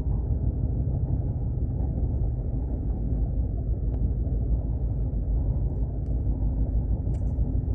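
Steady low rumble of a moving train, with a few faint clicks.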